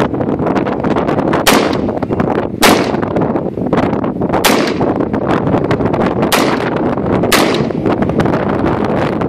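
AR-15 semi-automatic rifle fired five times, single shots at uneven intervals one to two seconds apart, each crack followed by a short echo.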